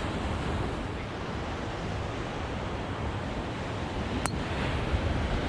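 Wind buffeting the camera microphone: a steady rushing noise with uneven low rumbling gusts. There is a single sharp click about four seconds in.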